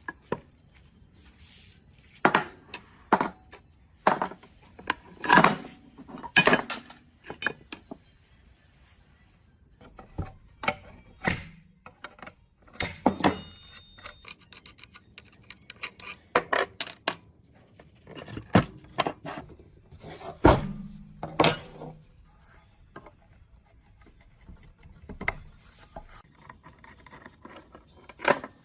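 Metal parts clinking, knocking and scraping as they are handled and set down on a hard surface, in irregular single strikes with pauses between.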